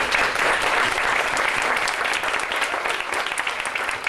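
An audience applauding: many hands clapping at once.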